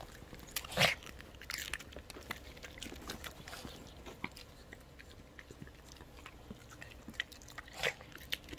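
Dogs crunching and chewing pieces of raw cabbage: a scatter of short, crisp crunches, the loudest about a second in and again near the end.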